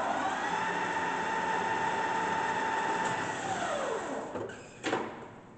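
Cazeneuve HB 575 geared-head lathe running under power, its headstock gears giving a steady whine. About three seconds in the whine falls in pitch and fades as the spindle runs down to a stop, and a single sharp clunk follows near the end.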